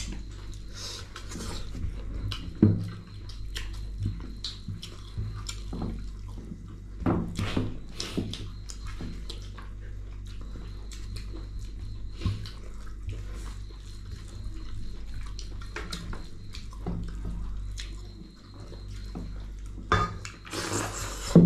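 Close-up eating sounds: wet chewing and smacking of rice, dal and chicken, with scattered short clicks and a louder burst near the end, over a steady low hum.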